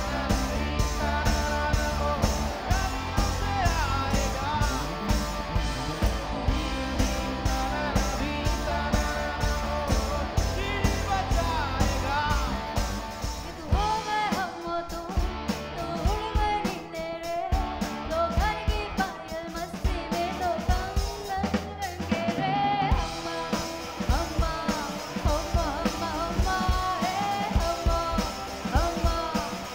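A band's rock song: a vocal sung over electric guitar and a drum kit with a steady beat. The bass thins out for a stretch in the middle before coming back.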